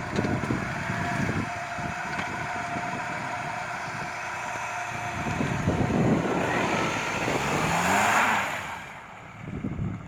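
A 2003 Honda CR-V's four-cylinder engine running as the car pulls away up a snowy slope, revving up with a rising pitch and a loud hiss from about six seconds in, then dropping away about nine seconds in.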